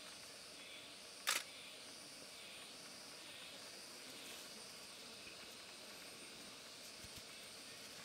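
Faint, steady outdoor ambience with a hiss, broken about a second in by a single sharp click.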